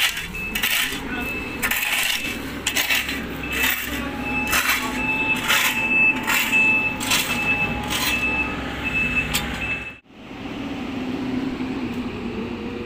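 Shovels and rakes scraping through fresh asphalt on a road patch, stroke after stroke about every half second, over a running machine with a repeated high beeping. About ten seconds in the scraping stops and a backhoe loader's diesel engine is heard running steadily.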